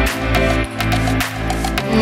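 Background music with sustained instrumental notes over a steady beat.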